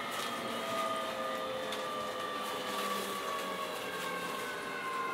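Keio 7000-series electric train heard from inside the car while slowing into a station: the traction motor whine falls slowly and steadily in pitch under braking, over a steady running rumble with a few faint clicks.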